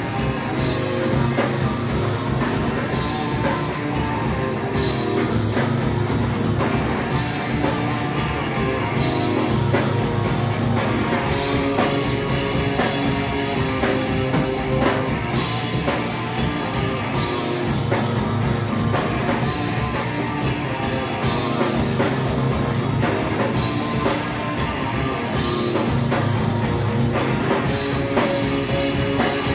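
A rock band playing live, with drum kit and guitar.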